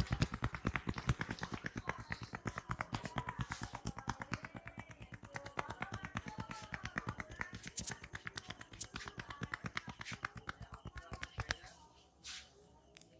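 Percussive hand-tapping massage: the barber's hands strike the customer in a fast, even rhythm of sharp slaps that stops suddenly near the end.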